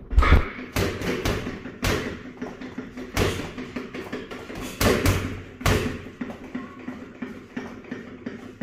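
Boxing gloves striking a freestanding reflex bag: a run of irregular thuds, some in quick pairs, growing fainter after about six seconds in.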